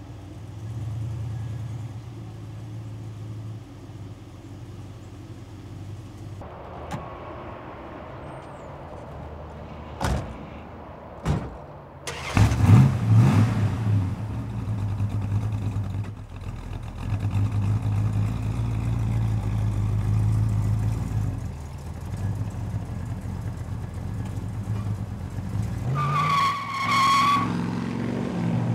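Plymouth Duster 340's V8 engine running with a steady low rumble, revving hard once just before midway and accelerating away near the end. Two sharp knocks come shortly before the rev, and a brief high squeal sounds near the end.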